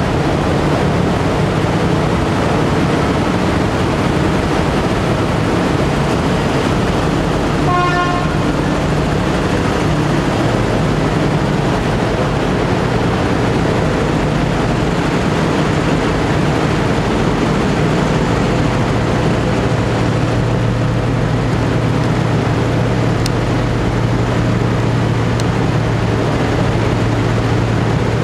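Steady loud drone of a passenger-vehicle ferry under way, its engine hum mixed with wind and water noise. About eight seconds in, a horn sounds once for about a second. From about eighteen seconds in, the low engine hum becomes a steadier, stronger tone.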